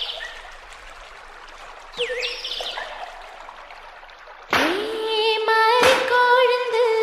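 Song intro: a bird chirping over a steady stream-like water sound, then about four and a half seconds in an instrumental melody comes in loudly on a long held note, with sharp percussion strikes near the end.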